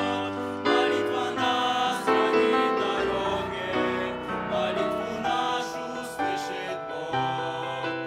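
A youth vocal group singing a Russian-language hymn in parts, with piano accompaniment.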